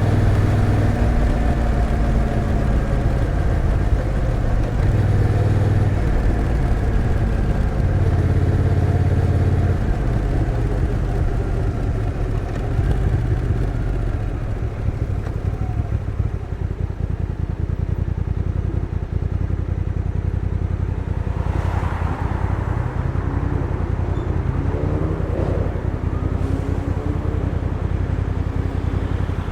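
The Honda NT1100's 1,084 cc parallel-twin engine running under way with its stock exhaust. It is strongest at first, eases off about a third of the way in, then rises in pitch several times in short steps near the end.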